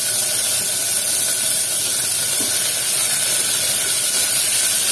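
Oil sizzling in a steady hiss as chopped tomato fries with onions, garlic, ginger, green chilli and curry leaves in an open aluminium pressure cooker.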